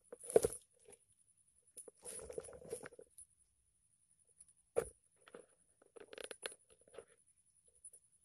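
Handling noise as the camera is moved and set down, followed by scattered rustles, crunches and a sharp knock about five seconds in from someone moving about and handling gear, with a faint steady high whine underneath.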